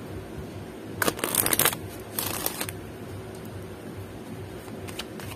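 A deck of oracle cards shuffled by hand: two quick rushes of cards riffling together, about a second in and again just after two seconds, then a few light taps of cards near the end.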